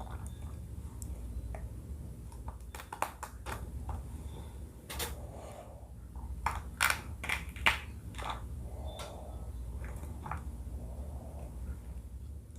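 Close-miked eating sounds: crisp crunches and wet clicks of biting and chewing crab and papaya salad, coming in clusters. The loudest are a few sharp crunches a little past the middle, over a steady low hum.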